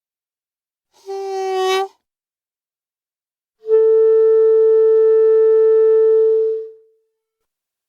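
Clarinet playing two separate notes: a short one about a second in that swells louder, then a long held note, slightly higher, from about three and a half seconds that stays steady and fades away near the end.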